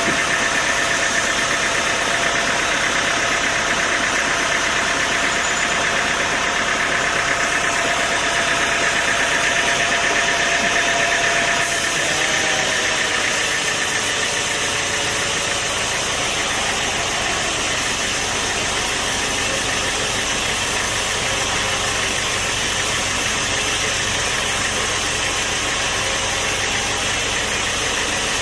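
A machine running steadily, a dense mechanical noise with a steady high whine; about twelve seconds in the sound shifts, the whine drops away and the machine carries on a little quieter.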